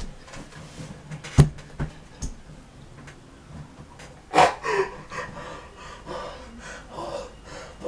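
A man stifling laughter, with breathy snorts and gasps that come in short bursts from about halfway through. A single sharp smack a little over a second in is the loudest sound.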